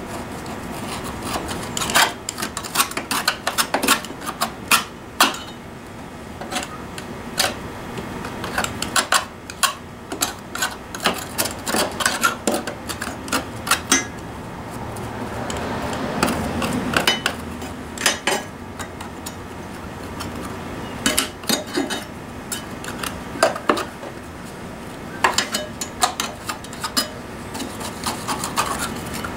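Hand scraper scraping and knocking against the underside of a lawn mower deck, clearing out thick compacted grass clippings: irregular scrapes with many sharp metallic taps, and a longer stretch of rough scraping about halfway through.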